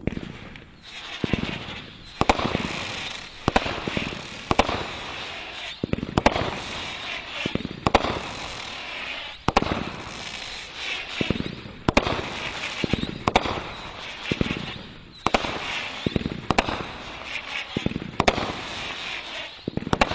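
A 500-gram multi-shot fireworks cake firing in quick succession, about one shot a second, each sharp report followed by whistling and chattering effects that overlap the next shot.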